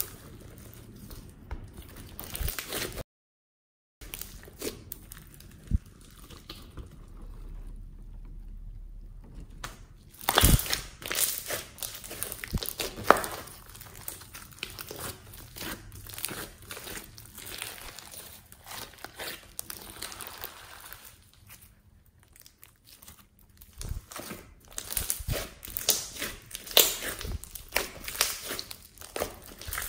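Hands stretching, folding and squeezing floam slime packed with foam beads: irregular crackling, popping and squishing. A second of dead silence comes about three seconds in.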